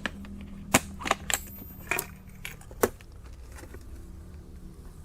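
Small electronic components clicking and clinking in a parts container as it is turned over and handled: a handful of sharp clicks in the first three seconds, then only faint ones.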